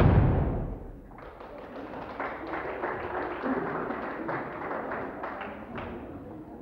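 The dance music ends on a loud final chord that dies away within the first second. Then come irregular taps and scuffs of shoes on a parquet floor, with low murmuring voices, as the dancers stand and move about.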